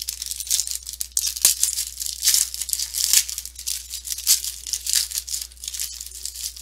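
Foil wrapper of a 2015 Topps Fire football card pack being torn open and crinkled in the hands: a dense, uneven run of crackling.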